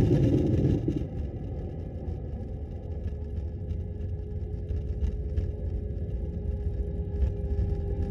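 Jet airliner rolling out after landing, heard from inside the cabin: the loud engine roar drops away about a second in, leaving a low rumble from the rolling aircraft and a steady engine hum.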